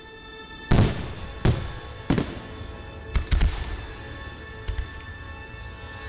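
Aerial fireworks shells bursting in a series of sharp booms, the loudest about a second in and a quick run of three around three seconds in, over music with long held tones.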